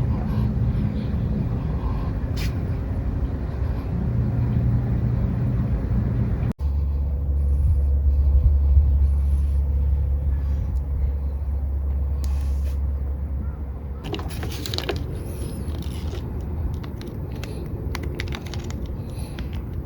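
An engine idling with a steady low rumble. There is an abrupt cut about six seconds in, after which the low drone carries on, and scattered clicks and knocks come in over the second half.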